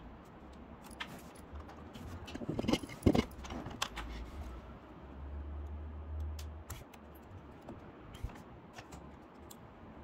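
Scattered small clicks and metallic ticks of a precision screwdriver turning and seating the screws in a ThinkPad T580's lower shell, with hand-handling noise; the loudest clicks come about three seconds in, and a brief low rumble comes a little past the middle.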